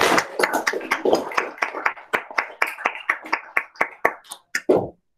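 Small audience applauding, a dense patter of hand claps that thins out to a few scattered single claps and stops near the end.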